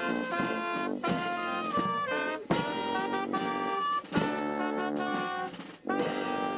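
Brass band of trumpets, trombones and tubas playing slow held chords, with a bass drum struck about every one and a half seconds.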